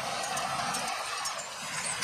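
Fendt 720 Vario tractor and small square baler running steadily while baling hay, an even mechanical din with faint light clicks.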